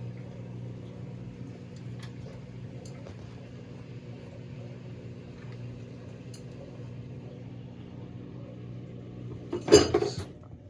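Faint metallic ticks of tools and engine parts being handled over a steady low hum, then a loud metal clatter about nine and a half seconds in.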